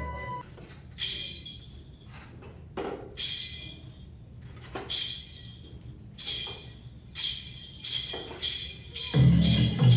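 Sharp metallic jingles, one shake every second or two, each ringing briefly with a bright high tone, as in a Kaga lion dance. Near the end the accompanying music comes in loudly.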